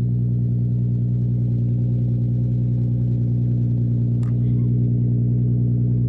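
Infiniti G35's 3.5-litre V6 idling steadily through an aftermarket Agency Power exhaust, heard close at the tailpipe. A single short click about four seconds in.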